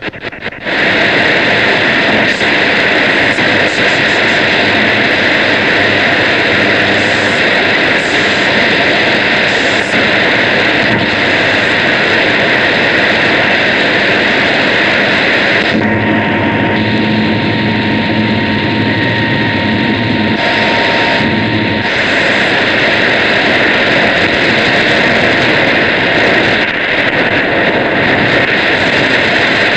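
Shortwave radio receiver putting out loud, steady static-like noise that drowns out the broadcast. A thin steady whistle tone comes in a little past the middle and lasts several seconds.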